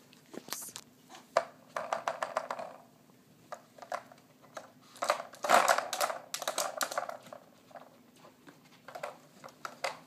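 Plastic paw-pad lids of a Kyjen Paw Hide dog treat puzzle clicking, rattling and scraping as a small dog noses and paws at them to find a hidden treat. The sounds come in irregular clusters, busiest about five to seven seconds in.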